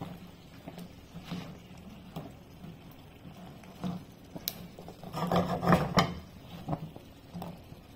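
A spatula scraping a nonstick frying pan and shifting whole chestnuts, which knock against each other and the pan. Near the end comes a louder run of clattering knocks as the chestnuts are turned over.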